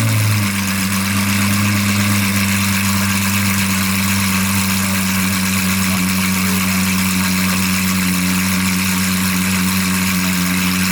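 Race car engine idling steadily after its revs drop at the start, holding one even note with a constant hiss above it.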